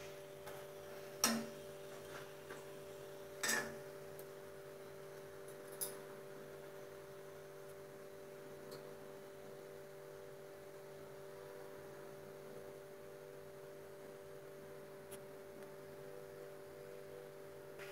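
A steady faint hum, with three sharp clicks in the first six seconds from a metal spatula knocking against an iron kadai.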